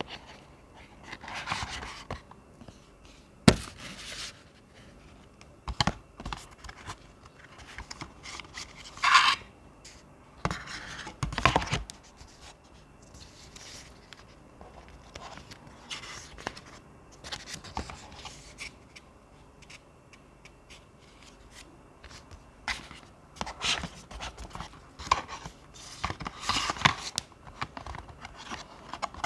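Packaging being handled: scattered scrapes and rustles with a few sharp knocks, the loudest about three and a half seconds in.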